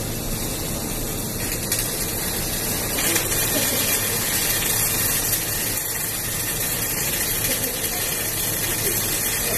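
Flux-cored arc welding: the steady crackling hiss of welding arcs in several booths, getting a little louder about three seconds in, with a low steady hum underneath.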